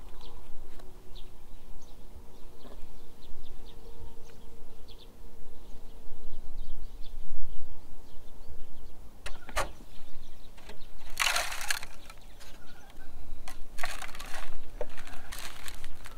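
Hands rustling and scraping potting mix into a plastic plug tray. It comes as a sharp click about two-thirds through, then several loud bursts of rustling near the end, over a low steady rumble.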